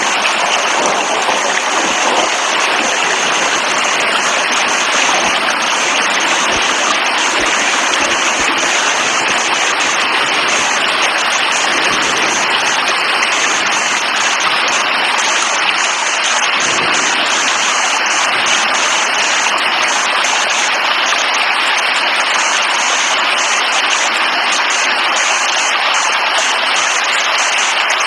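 Rain falling in a steady, even hiss without let-up.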